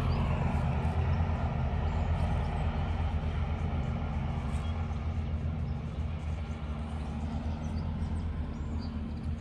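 Domestic cat purring close to the microphone, a steady low rhythmic rumble that slowly gets quieter toward the end.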